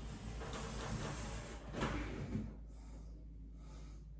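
A razor blade scraping as it is drawn through wallpaper on the wall, with a few light knocks. It quietens about two and a half seconds in.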